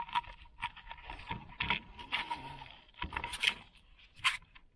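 Close handling noise: irregular scrapes, light clicks and rattles, over a faint steady high whine.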